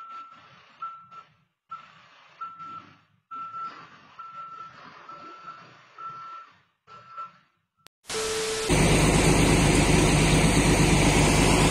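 Backhoe loader's reversing alarm beeping steadily, roughly one beep every three-quarters of a second, over faint engine noise. About eight seconds in it cuts to a loud, steady heavy diesel engine running.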